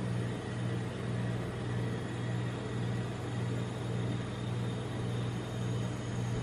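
Low, steady machine hum of the rolled-ice-cream machine's refrigeration running under its frozen pan, swelling and fading evenly a little more than once a second.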